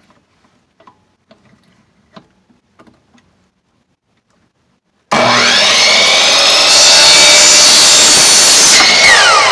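A few faint clicks, then about five seconds in an electric saw starts abruptly and loud and cuts through wood. Its motor whine rises as it spins up and falls away as it winds down near the end.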